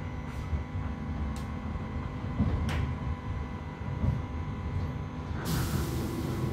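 Class 323 electric multiple unit running, heard from inside the carriage: a steady low rumble with a faint steady whine and a few sharp clicks. Near the end a burst of hiss lasts about a second.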